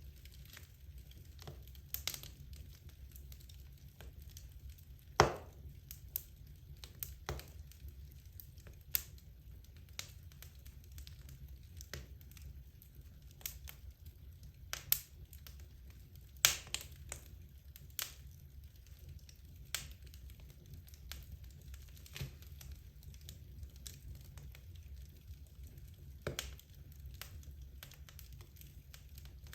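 Wood logs burning in a fireplace, crackling with scattered sharp pops, the loudest about five seconds in, over a steady low rumble.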